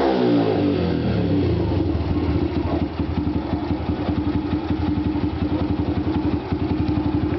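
Yamaha YBR Factor's single-cylinder four-stroke engine breathing through a round aluminium Roncar aftermarket muffler: the revs drop back in the first half second, then it idles steadily with an even, rapid exhaust beat.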